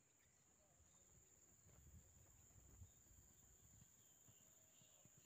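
Near silence: faint outdoor ambience with a steady, thin, high-pitched hum and a soft low rumble that swells for a second or two in the middle.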